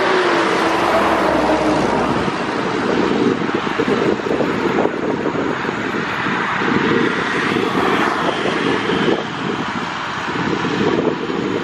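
De Havilland Canada Dash 8-200's twin Pratt & Whitney Canada PW123 turboprop engines running, heard from behind the aircraft. A steady whine dips in pitch over the first two seconds, then gives way to a rough, uneven propeller drone.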